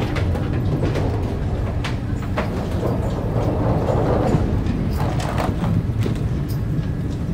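Ferry's engines running with a steady low rumble, with scattered clicks and knocks over it.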